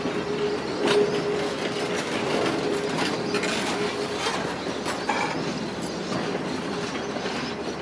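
Train running on the rails: a steady rolling noise with a faint held tone and a few sharp clicks of wheels over rail joints.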